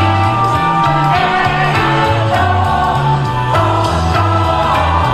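Music with a singing voice over a bass line that steps from note to note.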